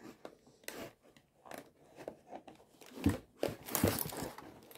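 Scissors cutting through thin clear plastic packaging, with crinkling of the plastic and scattered snips, busiest about three seconds in.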